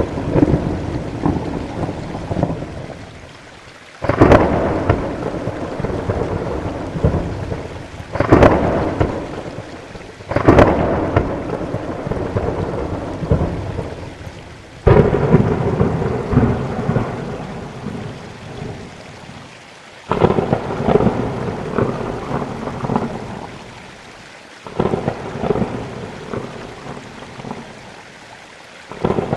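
Thunderstorm: steady rain with about seven sudden thunderclaps, each dying away into a rumble over a few seconds.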